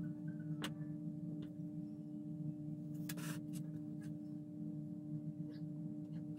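Steady low electrical hum, with a few faint, short clicks and light taps from small parts being handled while decals are applied.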